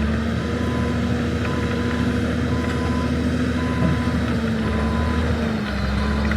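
Heavy diesel machinery running steadily with a backup alarm beeping, under a steady mechanical whine.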